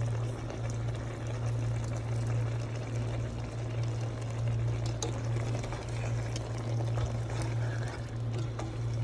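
Pot of okra soup simmering on the stove, giving a soft liquid sound over a steady low hum, with a few faint light clicks.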